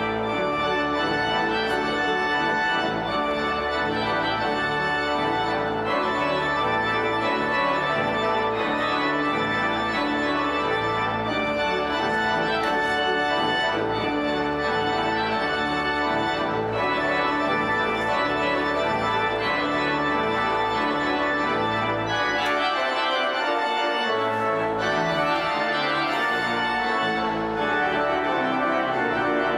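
Organ playing sustained chords over a stepwise moving bass line, steady in level; the deep bass drops out for a couple of seconds about three-quarters of the way through.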